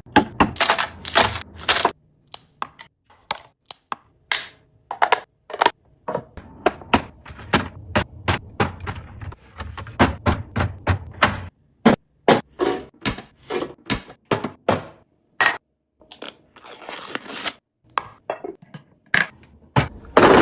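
Rapid, irregular clacks and thunks of containers, jars and packages being set down, slid and handled while a fridge is restocked, with a few short rustles in between.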